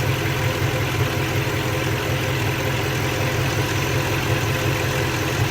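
Ford 4.6-litre two-valve V8 in a 2007 F-150 idling steadily, with no misfire showing at the moment.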